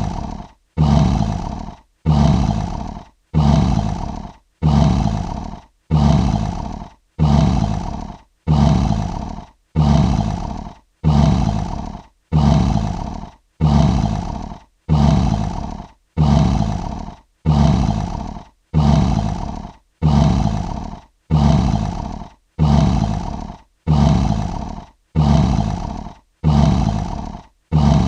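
A short lion roar sound effect looped over and over, the same roar repeating about every 1.3 seconds. Each roar starts sharply and fades out before the next begins.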